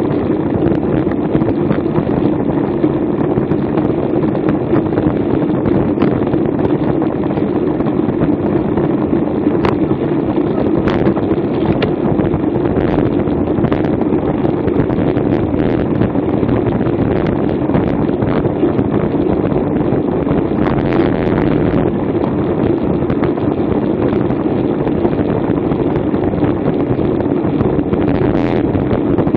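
Steady wind rush over the microphone of a bicycle-mounted Garmin VIRB action camera, riding a road bike at racing speed, with a few faint clicks.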